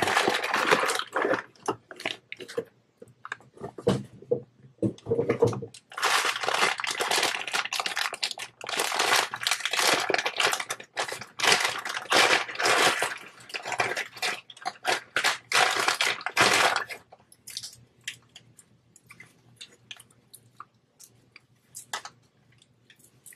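Packaging being handled as accessories are unpacked: crinkling and rustling, most likely plastic wrap, in dense bursts for about seventeen seconds, then only occasional light clicks and taps.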